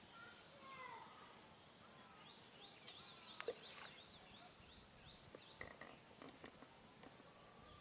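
Faint outdoor ambience with birds calling in short repeated chirps and a drawn-out call about a second in. A single sharp click comes about three and a half seconds in, and a few faint taps near six seconds.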